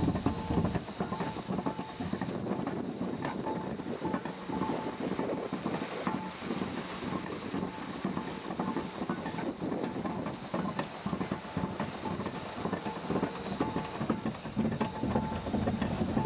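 SS Master's two-cylinder steam anchor windlass engine running, a steady rapid chuffing of exhaust beats with steam hissing.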